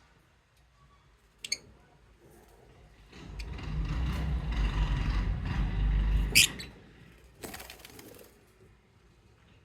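Lovebirds giving two short, sharp chirps, the second loud, amid a few seconds of scraping and rustling with a low rumble.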